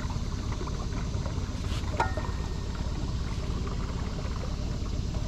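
A small boat's motor idling steadily with a low, even rumble, and a single sharp clink about two seconds in.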